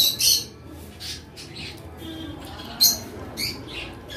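Close-up eating sounds: sharp, loud mouth smacks while chewing, two close together at the start and two more about three seconds in. Faint chirps of pet birds are heard in the background.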